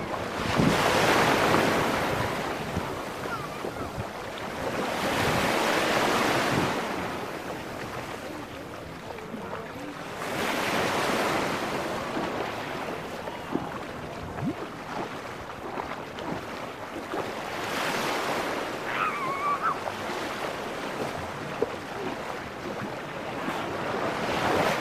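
Small waves washing up and drawing back on a sandy shore, the rush of water swelling and fading about every five seconds. A short high-pitched cry sounds faintly about three quarters of the way through.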